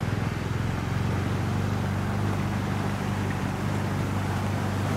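A steady low motor drone with a constant hiss over it.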